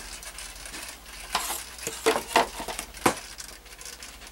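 Handling noise: rustling with a few sharp knocks and clatters, the loudest about two and three seconds in, as a foam RC flying wing is laid down on a cluttered workbench.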